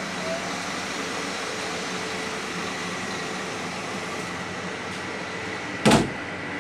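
Steady cabin hum on the upper deck of a double-decker coach, with a faint thin tone in it. A single short, loud thump comes near the end.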